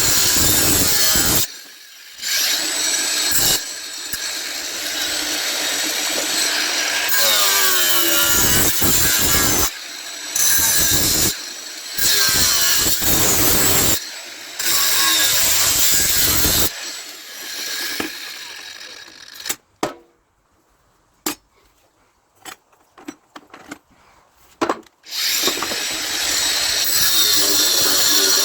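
A power tool cutting scrap brass, running in loud stretches of a few seconds with short breaks. About two-thirds of the way through it stops for several seconds, with only a few clicks, then starts cutting again.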